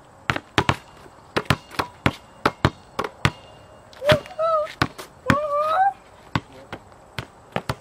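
Basketball thuds and knocks, about two or three a second, with the loudest hit about four seconds in as the shot strikes the backboard. Two short, high, wavering vocal cries follow just after.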